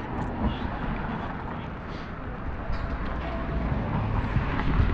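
Street ambience: a steady low rumble and hiss of road traffic, growing louder toward the end.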